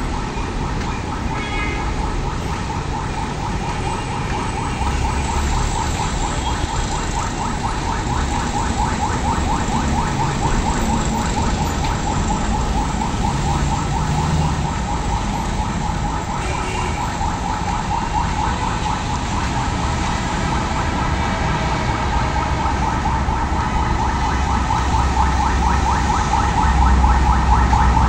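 Road traffic rumble with a continuous, rapidly warbling electronic alarm tone over it; the traffic grows louder near the end.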